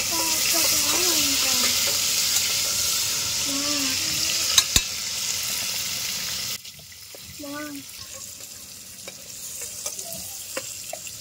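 Curry frying in a hot pan, a loud steady sizzle with a couple of sharp knocks a little past halfway. The sizzle cuts off abruptly about two-thirds of the way through, leaving only a faint sizzle.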